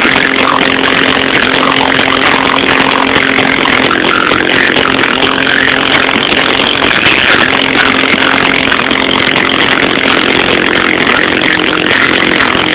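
Four Kicker CVR 12-inch subwoofers in a car playing bass at very high volume, heard inside the cabin as a loud, steady, distorted buzz with a constant low tone running through it: the phone microphone overloaded by the bass.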